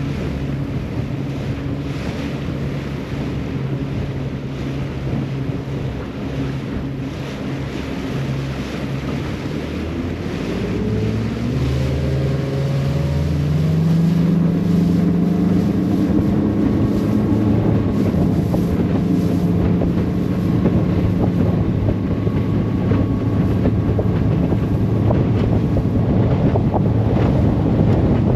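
Outboard motor driving an Xpress X21 Pro bass boat across choppy water, with wind buffeting the microphone. About ten seconds in, the engine's pitch climbs and it gets louder as the boat speeds up, then it holds steady at the higher speed.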